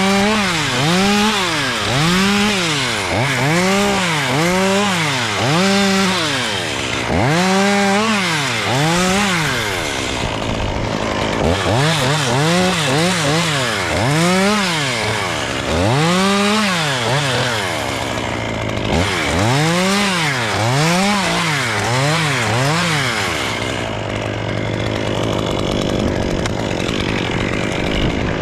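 Two-stroke chainsaw revved up and down over and over, about once a second, then dropping to a steady idle a few seconds before the end.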